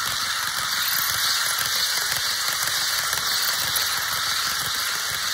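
HO-scale model train, a Siemens Taurus locomotive hauling a 16-car consist, rolling along the track: a steady high-pitched rushing of metal wheels on rails, with no clear breaks.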